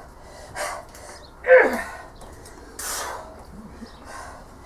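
A woman's forceful, effortful breathing while straining to bend a Grade 5 steel bolt by hand: sharp hissing breaths about every second and a half. The loudest, about one and a half seconds in, carries a short grunt falling in pitch.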